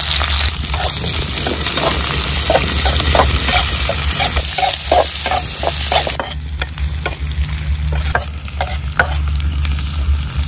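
Onions frying in hot oil in a pan, sizzling while a spoon stirs and scrapes them with irregular knocks. The sizzle drops off sharply about six seconds in.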